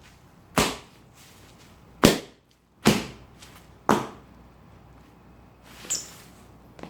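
Bubble wrap being popped: about six sharp, loud pops at uneven intervals, the last ones softer.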